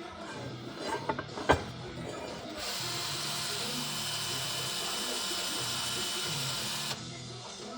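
A small handheld power tool, a stand-in for a burned-out rotary tool, runs with a steady high whir for about four seconds, starting about two and a half seconds in and cutting off sharply near the end. A sharp click comes about a second and a half in, and background music plays throughout.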